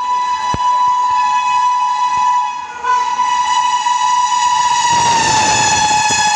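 WAP5 electric locomotive's horn blown long and hard, a steady held blast with a brief break about two and a half seconds in. About five seconds in its pitch drops slightly as the locomotive goes by.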